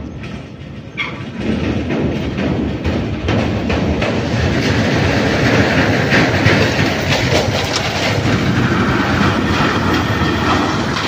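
Steel chequer-plate deck of a pontoon bridge clattering and rattling under a passing vehicle: a dense run of metal knocks over a low rumble, building about a second and a half in and staying loud.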